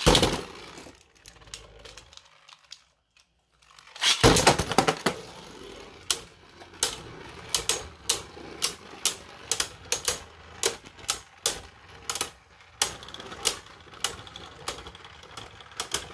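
Two Beyblade tops launched one after the other into a plastic stadium, the second launch about four seconds in. Then sharp clicks about two or three a second as the spinning tops knock against each other.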